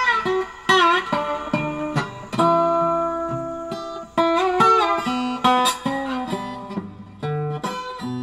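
Music played on a plucked guitar: single notes and short phrases, several of them bent in pitch.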